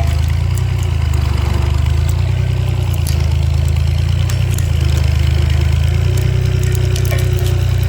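Road roller's engine running steadily with a deep, low hum, with a few light clicks scattered through it.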